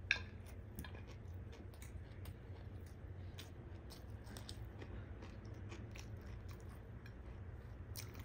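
Close-miked eating sounds: beef biryani being chewed, with many small clicks throughout, and one sharp click that rings briefly right at the start.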